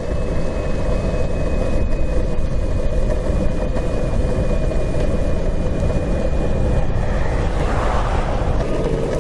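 Evolve electric skateboard riding over pavement: a steady rumble of wheels and air noise, with a thin high motor whine that fades out about seven seconds in.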